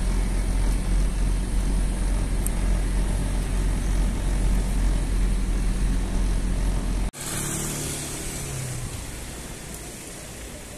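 Road traffic outdoors: a steady low rumble of passing vehicles that cuts off abruptly about seven seconds in. A quieter street hiss follows, with the faint hum of an engine.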